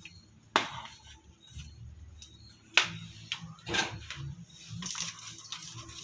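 A few sharp knocks against a stainless steel bowl, the loudest about half a second and three seconds in, then soft scraping and squishing as flour is worked by hand into sugar water in the bowl.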